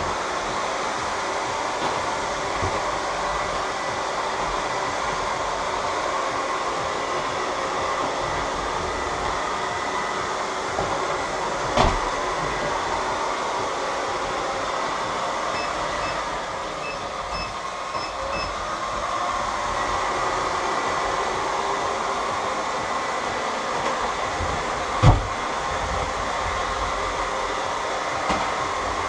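Robot vacuum running, a steady whir of its suction motor and brushes. There is a sharp knock about twelve seconds in and a louder one about twenty-five seconds in, and a few short high beeps about halfway through.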